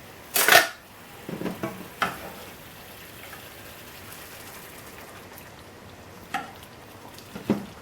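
Curry sauce frying and sizzling in a hot pan as base gravy is added to it a bit at a time. A few knocks of a utensil against the pan sound over it, the loudest about half a second in.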